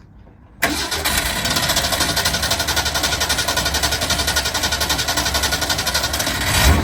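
1965 Ford Mustang engine cranking on the starter motor with a steady, even rhythm for about six seconds, starting to catch near the end. It is a hard start that the crew put down to the carburetor trying to flood.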